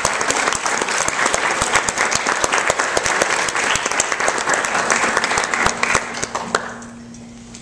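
Applause: many hands clapping densely, dying away about six and a half seconds in.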